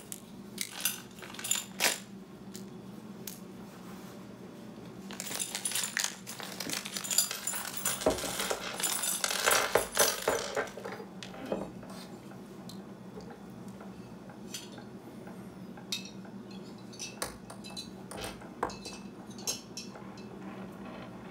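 Small metal hardware (screws, lock nuts and washers) clinking and clicking as it is handled on a countertop, with a plastic parts bag rustling during a busy stretch in the middle; scattered light clicks after that.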